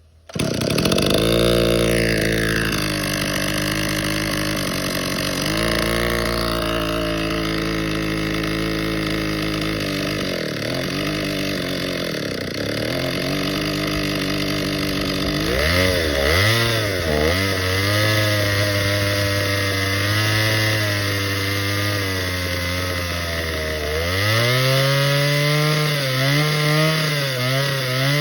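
Gas chainsaw running while cutting firewood, its engine pitch dipping and recovering again and again as the chain bites into the wood. The pitch changes noticeably about halfway through and again near the end.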